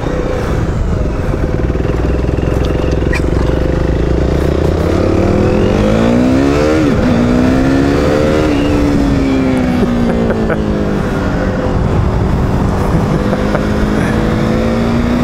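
KTM Duke 390's single-cylinder engine running at low revs, then about five seconds in accelerating hard. The revs climb and drop sharply at two quick upshifts, then settle into a steady cruise and start climbing again near the end, with wind rush over the moving bike.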